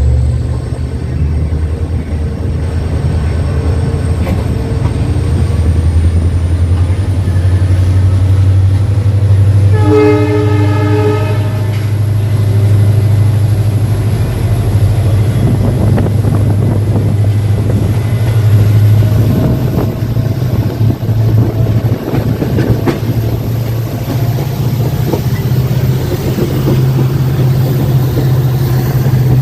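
EMD WDP4D diesel locomotive working under power: a deep steady engine drone with a high turbocharger whine slowly climbing in pitch as the train gathers speed. About ten seconds in, a short horn blast of about a second and a half.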